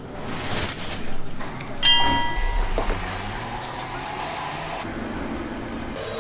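Tyre-shop background noise, with a short ringing tone with overtones about two seconds in.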